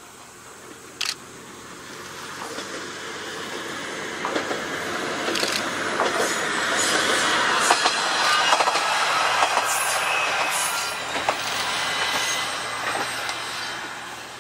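Yellow Isumi Railway single-car diesel railcar approaching and passing close by: its engine and wheels grow steadily louder, a run of sharp clacks comes as it goes past, and it fades away near the end. A single sharp click about a second in.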